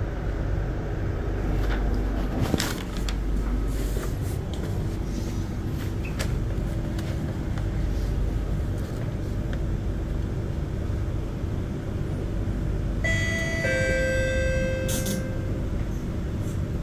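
Inside a C151B MRT train running on the track: a steady rumble of the wheels and running gear with a steady hum, a couple of knocks a few seconds in, and a brief high tone lasting about two seconds near the end.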